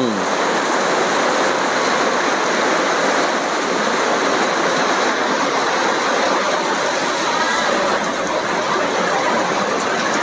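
Heavy rain pouring down: a loud, steady, unbroken hiss.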